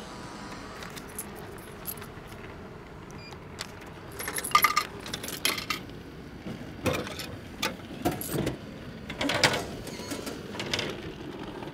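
Hamburger vending machine dispensing a purchase: after a few quiet seconds, a run of clicks, knocks and metallic clatters as the change coins drop into the return and the pickup flap is worked to take out the boxed burger.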